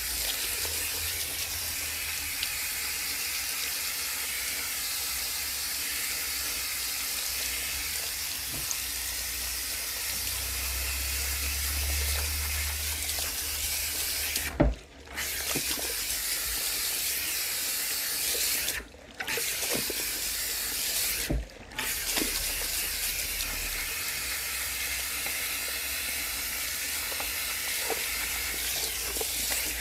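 Water from a salon shampoo-basin sprayer running steadily onto hair and into the basin during a rinse. About halfway through there is a sharp click, and then the water cuts out briefly three times.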